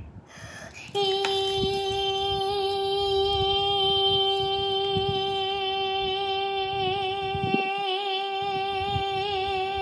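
A young girl sings one long held note at a steady pitch with a slight wobble, starting about a second in after a short pause. She holds it on a single breath.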